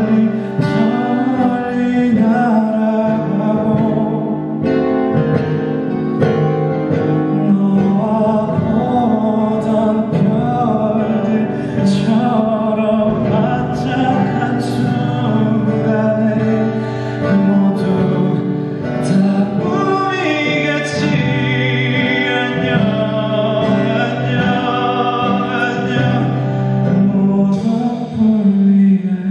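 Live performance of a song: a male singer's voice carrying the melody over instrumental accompaniment.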